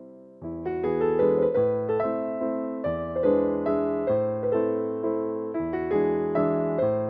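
Background piano music: a gentle keyboard melody of struck notes over a steady bass, fuller and louder from about half a second in.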